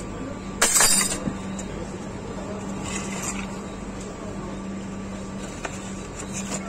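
A loud metallic clink and rattle about half a second in as brake parts are handled, then a softer rustle around three seconds as a box of new brake pads is handled, over a steady low hum.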